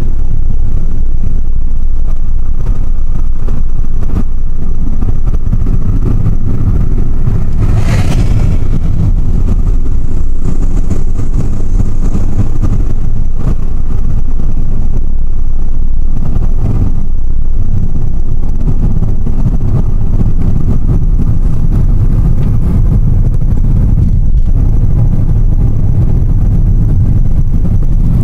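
Car driving, heard from inside the cabin: a loud, steady low rumble of engine and road noise. One brief sharp noise about eight seconds in.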